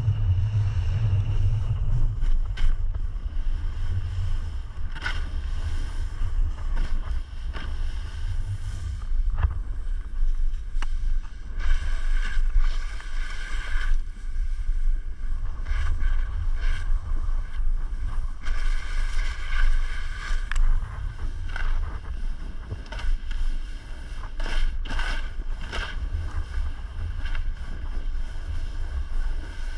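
Wind buffeting the microphone during a descent on snow, with the hiss and scrape of edges cutting through the snow coming back every few seconds as the turns link.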